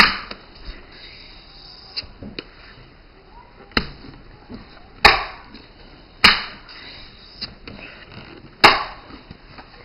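Daisy Powerline 880S multi-pump air rifle being pumped: the forearm pump lever is worked about five times, irregularly spaced. Each stroke ends in a sharp clack that trails off briefly, with a few fainter clicks between.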